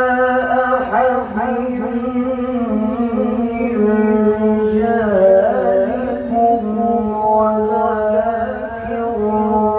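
A male qari reciting the Quran in melodic tilawah style, in a high, strong voice through a microphone and loudspeakers. He holds long notes that glide and bend in ornaments.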